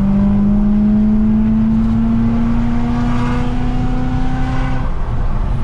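BMW E92 M3's V8 through a titanium cat-back exhaust, heard from inside the cabin, pulling under throttle with the revs climbing slowly and steadily. The engine note falls away near the end as the throttle eases off.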